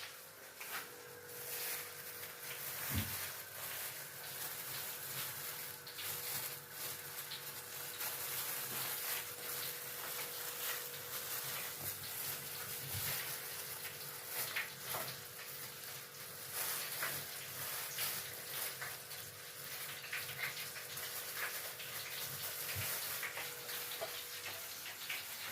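Breaded chicken deep-frying in hot oil: a steady crackling sizzle with many small pops. A faint steady hum runs underneath, and there is one dull knock about three seconds in.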